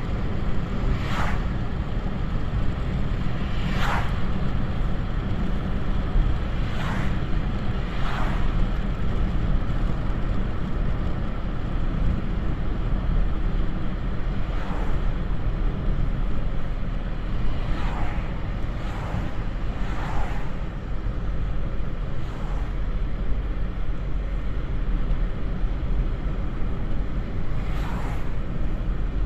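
Steady low road rumble, with oncoming cars whooshing past about ten times at uneven intervals, each pass a brief swell and fade.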